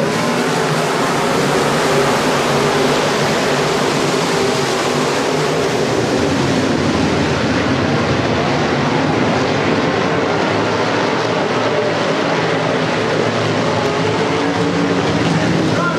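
A field of IMCA Modified dirt-track race cars' V8 engines running hard at racing speed, blending into one loud, steady drone.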